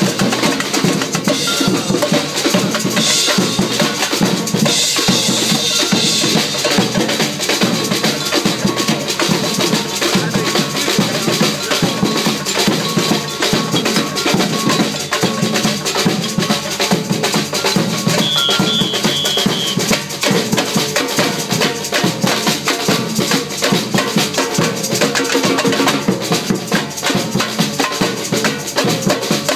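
Live percussion: drums, timbales and cymbals played in a steady, driving rhythm without a break.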